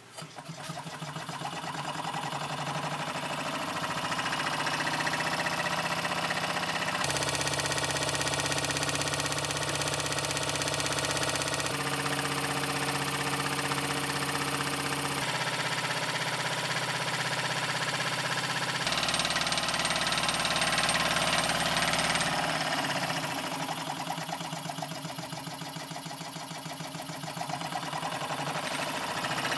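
A small 90° V-configuration Stirling hot-air engine (GT03, glass cylinders, Plexiglas flywheel, plastic crank and connecting rod) is started by a hand turn of the flywheel. It runs up to speed over the first few seconds, then runs steadily with a fast, even mechanical clatter.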